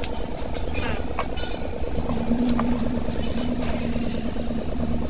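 A vehicle engine idling steadily, with an even, fast pulsing rumble and a steady hum joining it about two seconds in.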